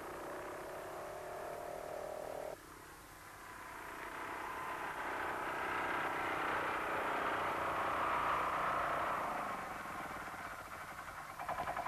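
Hanomag R12 tractor's single-cylinder two-stroke diesel running. The sound cuts off abruptly about two and a half seconds in, then grows louder, peaks and fades again near the end as the tractor draws near.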